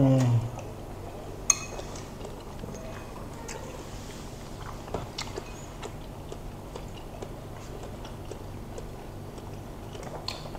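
Mouth-chewing of bakso meatballs with scattered small clicks, after a hummed 'mmm' that trails off at the very start. About a second and a half in comes one sharp, ringing clink as a metal spoon is set down in a ceramic bowl.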